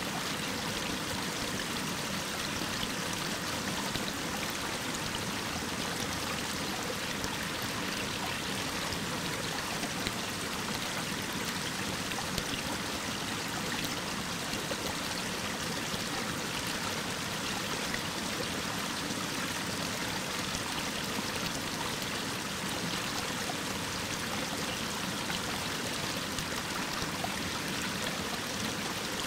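Mountain waterfall pouring down a rock face: a steady, unbroken rush of falling water.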